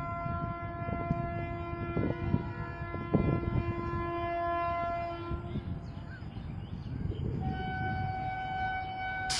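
Indian electric locomotive horns sounding long, steady blasts over the rumble of rolling trains. One horn holds for about five and a half seconds. After a short gap, a higher-pitched horn sounds from about seven and a half seconds on, and a rush of noise comes right at the end.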